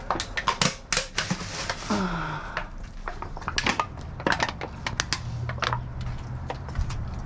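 Irregular clatter of sharp clicks, crinkles and crunches as trash is rummaged through and handled in a dumpster, with something being crushed. A short falling tone comes about two seconds in.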